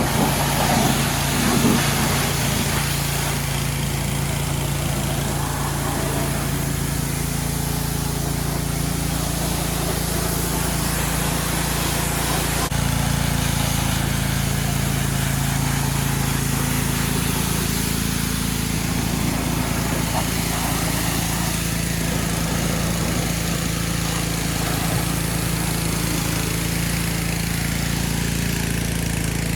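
Mahindra 1626 tractor's diesel engine running steadily, its note shifting slightly about 13 seconds in.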